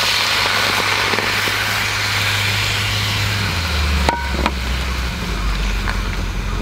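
Head-on shrimp sizzling and bubbling in liquid in a small cast-iron skillet on a hot grill, a loud steady hiss that eases after about four seconds. A light clink about four seconds in.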